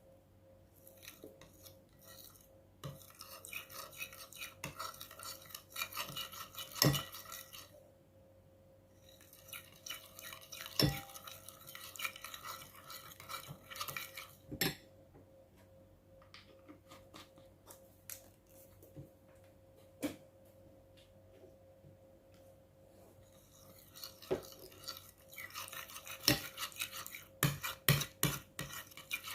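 A utensil stirring and scraping slime mixture in a bowl, in three spells with a quieter pause in the middle, and sharp taps of the utensil against the container now and then.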